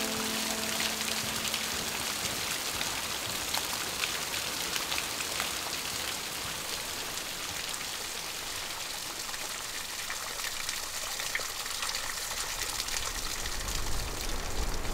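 Falling water: a steady hiss with many small, sharp drop impacts pattering throughout.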